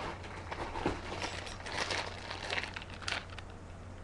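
Clear plastic bag crinkling as it is handled, in a run of uneven rustles.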